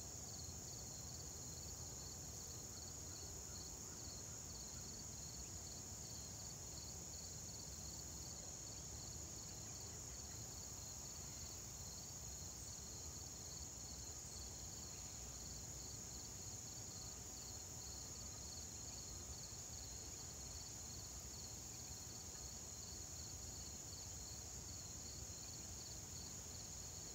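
Faint insect chorus: a steady high trill with a quicker pulsing chirp just below it in pitch.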